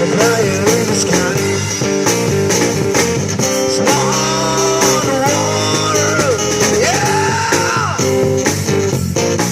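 Live amplified band music: a lead line with long, bending notes over strummed guitar, bass and a steady drum beat.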